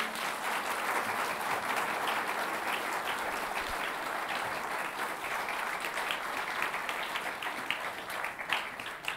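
Audience applauding as a song finishes, many hands clapping together, the clapping thinning out into scattered claps near the end.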